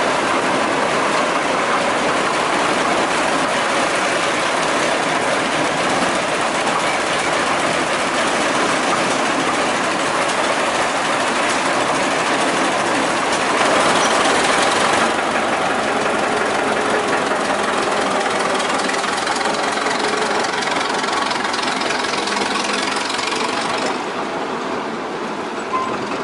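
The dragline's 1926 Twin City gas engine running steadily. The noise swells briefly about halfway through and eases a little near the end.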